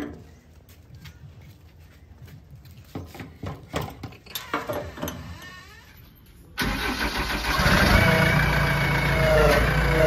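Scattered light clicks and knocks, then about two-thirds of the way through the JCB 3DX backhoe loader's four-cylinder diesel engine starts suddenly and runs loud, picking up a little over a second after it catches.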